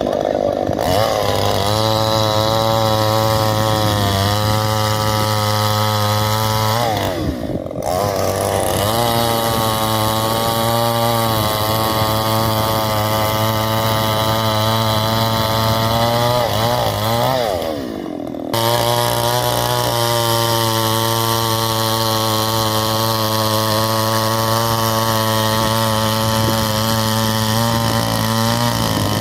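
Petrol chainsaw running at high revs while cutting a coconut tree trunk, its pitch sagging and recovering under the load of the cut. Twice it eases off briefly and then revs back up.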